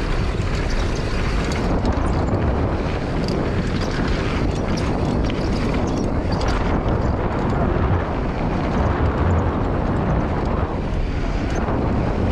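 Wind rushing over the camera microphone with a heavy rumble, mixed with a mountain bike's knobby tyres rolling on a hardpacked dirt trail, and scattered clicks and rattles from the bike.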